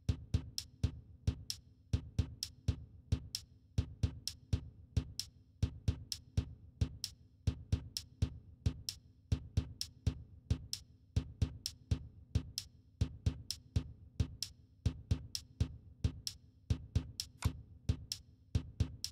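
Background music: a steady, quick electronic drum-machine beat over a held low tone.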